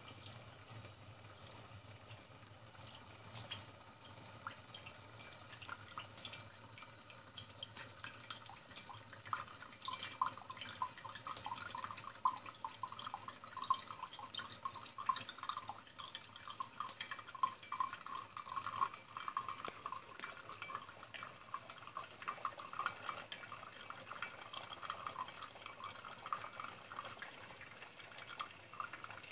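Espresso running from the portafilter of a 1970 Magefesa Electro Cafetera Express into a glass cup. It makes irregular dripping and crackling, which grows denser and louder about nine seconds in as the thin trickle becomes a steady stream. A faint low hum runs underneath.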